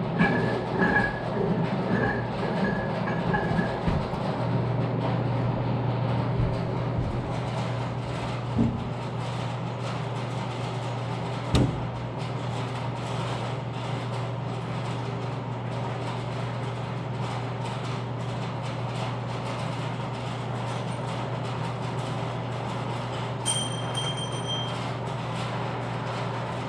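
Metal tools clinking and tapping against a combine engine's water pump as it is worked loose, with short ringing pings in the first few seconds. Under it runs a steady low machine hum that gets louder about four seconds in. There is a single sharp knock about twelve seconds in.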